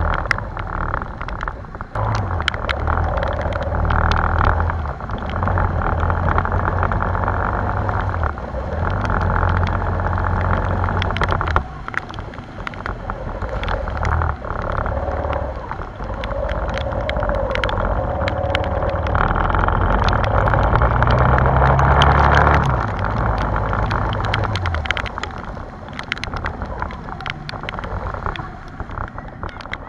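A motorbike engine runs and changes speed while riding through flooded streets in heavy rain. It is heard through a waterproof action-camera housing, with many sharp ticks from raindrops and splashes hitting the camera.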